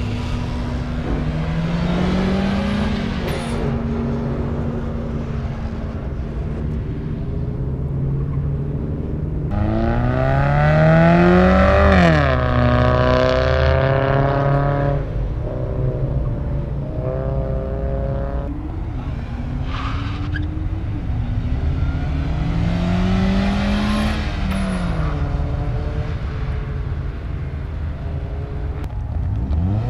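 Race cars accelerating hard on a track, engine pitch climbing and dropping again as they shift up through the gears, several runs in turn. The loudest is about ten seconds in, as a car runs closer.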